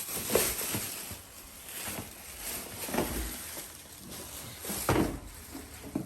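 Handling noises from a new vacuum cleaner's main body as it is brought out and moved: scattered knocks and rustles, the loudest about half a second in, at three seconds and near five seconds.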